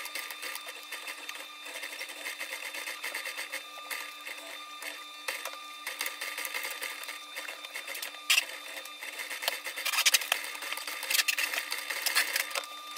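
Industrial sewing machine stitching a toe cap onto a leather boot: the needle clatters rapidly over a steady motor hum, with a few louder clacks in the last few seconds.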